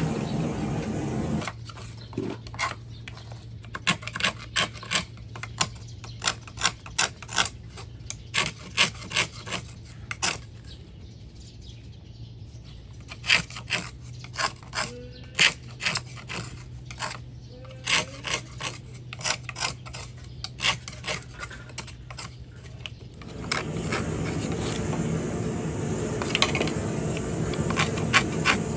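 Small knife cutting and scraping the inside of a notch in a green bamboo pole: irregular runs of sharp cuts and clicks, some in quick clusters. A louder steady background noise covers the first second or so and comes back near the end.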